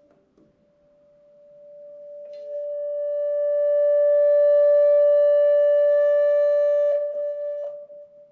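A single held tone at one steady pitch, from a karaoke microphone feeding back through a trumpet lying on the floor, swells slowly from faint to loud, turns brighter and buzzier at its loudest, then fades away near the end. A couple of light handling clicks sound as it dies down.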